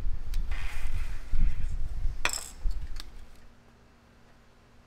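Handling noise and metallic clinks of work on a golf cart's drum brake assembly, with a brief hiss of aerosol lube about half a second in and a sharp clink a little after two seconds.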